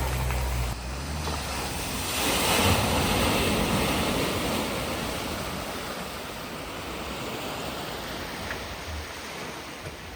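A vehicle driving through a flooded ford: its engine hum cuts out within the first second, then a rush of splashing water swells about two to three seconds in and slowly dies away.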